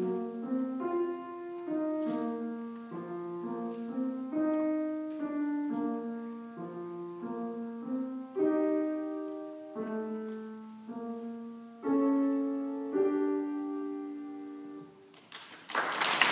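Grand piano played solo: a steady run of chords and melody notes that stops about fifteen seconds in. Applause breaks out near the end, louder than the piano.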